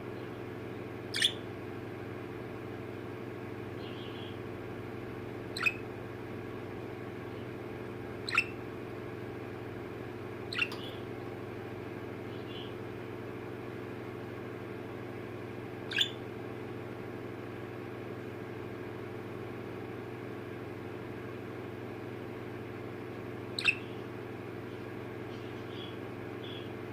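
Pet budgerigar giving six short, sharp chirps spaced several seconds apart, with a few faint softer chirps between them, over a steady low hum.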